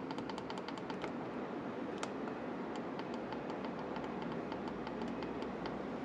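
Steady low background hum with faint, sharp clicks, several a second at first and more spaced out later.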